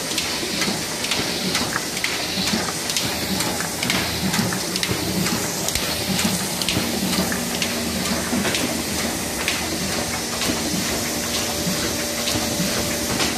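A one-colour sheet-fed offset printing press running a job: a steady mechanical clatter of rollers, grippers and sheet feed, with many small repeated clicks.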